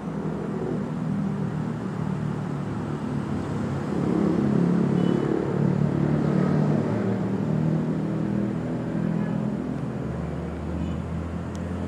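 A motor vehicle's engine running steadily, louder from about four seconds in, with a deeper low hum joining near the end.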